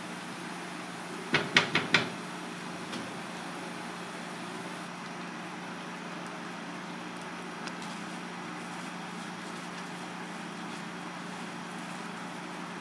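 Sauce simmering in a cast-iron skillet over a gas flame: a steady bubbling hiss over a low hum. About a second in there are four quick knocks, the loudest sounds here, with a couple of lighter clicks later.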